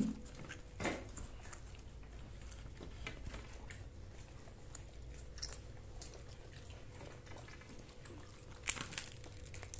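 A person chewing and biting food, with a few short soft clicks and smacks spread through.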